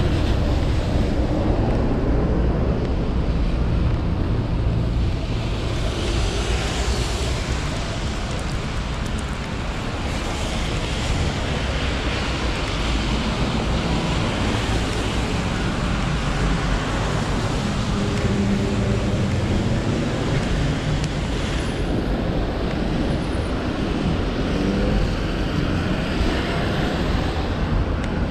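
Street traffic hissing on a wet road, with wind rumbling on the microphone. The tyre hiss is stronger in the middle stretch.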